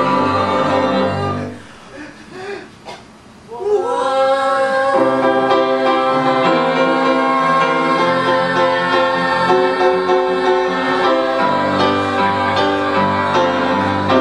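A small group of singers singing with piano accompaniment. A held chord breaks off about a second and a half in and the music drops low for about two seconds. Then a voice slides up into a long held note, and the singing and piano carry on.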